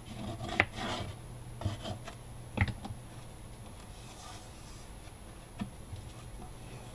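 Plastic glue bottle squeezed and its nozzle rubbed along the inside seam of a cardboard box, with a sharp knock about two and a half seconds in as the bottle is set down on the cutting mat. After that, softer sounds of fingertips rubbing the glued cardboard seam.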